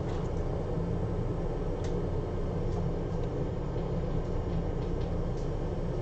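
Steady low hum of bench equipment, with a few faint light clicks from a small flex cable being handled.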